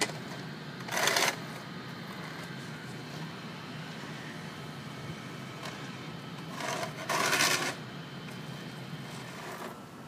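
Small tracked robot's electric drive motors and rubber treads running on concrete with a steady whirring rattle, with two louder bursts of tread noise, one about a second in and one lasting about a second near seven seconds in.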